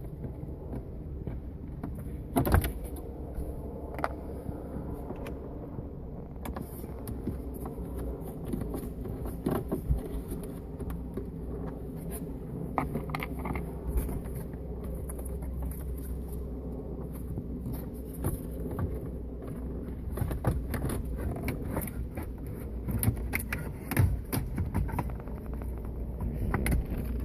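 Scattered clicks and knocks of plastic dashboard trim and clips being handled and pried, over a steady low hum.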